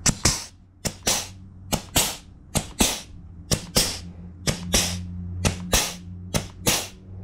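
Air-powered pistol-grip grease gun cycling as it pumps grease into a mower's front caster wheel grease fitting: about one stroke a second, each a sharp pop followed by a short hiss of air. An air compressor hums steadily underneath, louder from about halfway through.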